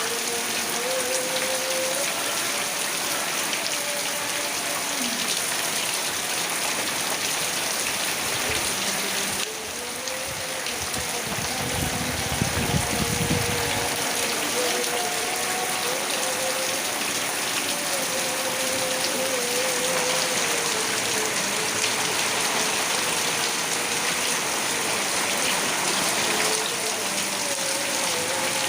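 Heavy rain pouring steadily. A faint, drawn-out wavering tone runs underneath it, and a short low rumble comes about twelve seconds in.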